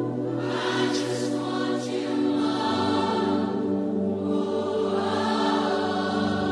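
Live worship band music in a slow, spontaneous section: sustained held chords underneath, with two sung phrases over them.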